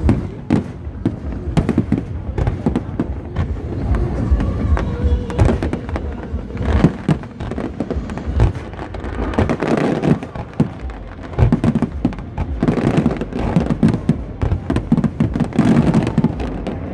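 Aerial fireworks bursting in quick succession: a dense, continuous run of sharp bangs and crackling.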